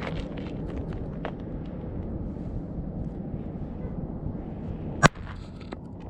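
A single firecracker exploding with one sharp, loud crack about five seconds in, over a steady low background rumble with a few faint clicks.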